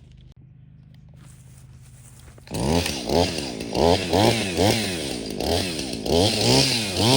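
Chainsaw idling low, then from about two and a half seconds in revved up and down repeatedly, about twice a second, as it cuts limbs.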